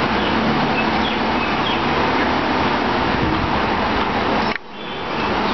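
Passenger coaches of the Mumbai–Howrah Duronto Express rolling past on the rails with steady wheel-and-track noise. The sound breaks off sharply about four and a half seconds in, and new train noise fades up.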